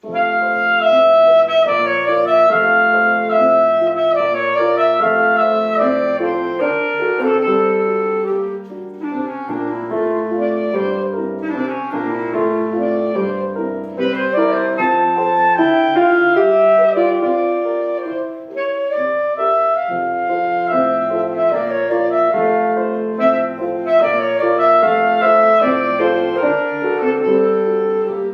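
A wind instrument playing a slow, singing melody with piano accompaniment, the music starting at once, with short breaks between phrases.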